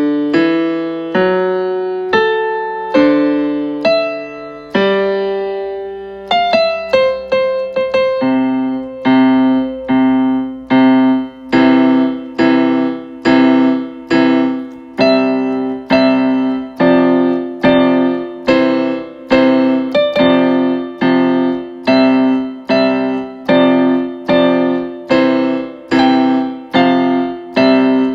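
Electronic keyboard with a piano voice, played slowly by a beginner. Chords are struck about once a second at first; from about six seconds in, a steady pulse of repeated notes carries the melody above it.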